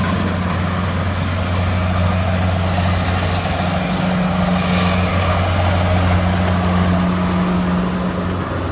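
Kubota rice combine harvester's diesel engine running steadily, a deep, even hum.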